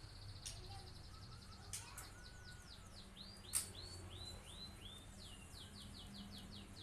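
Canary singing a long rolling song, made of fast runs of repeated short notes whose pattern changes every second or so. There is a sharp click about three and a half seconds in.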